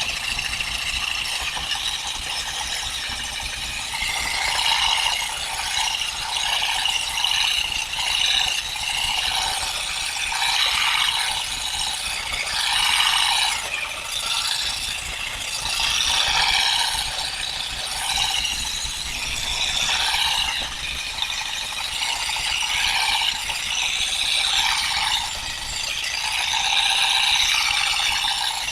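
Olives being stripped from the branches: a continuous rattling of leaves, twigs and fruit that swells and eases every second or two.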